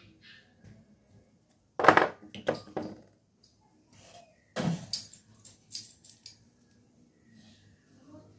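Fuel injector being fired on an improvised tester, giving a cluster of short, sharp bursts of spray about two seconds in and another burst near five seconds, with faint clicks between, as the injector's spray is checked.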